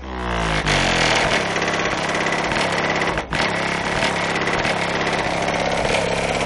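Two AQ HDC3 15-inch subwoofers driven by an AQ 3500D amplifier playing loud bass, heard from outside the car. The sound comes in suddenly and sweeps up in pitch over the first second, then holds steady and loud, with a brief drop about three seconds in.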